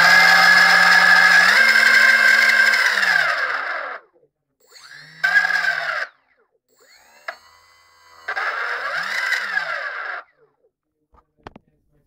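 Small brushless outrunner motor, no propeller fitted, spinning with a loud whine and a grinding edge that cuts in and out. It runs about four seconds, winds down and stops, then starts up twice more in short runs of one to two seconds, with a few sharp clicks near the end.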